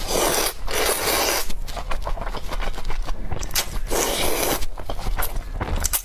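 Noodles being slurped up from a spicy chili broth: two long slurps, one at the start and one about four seconds in, with small chewing and mouth clicks in between.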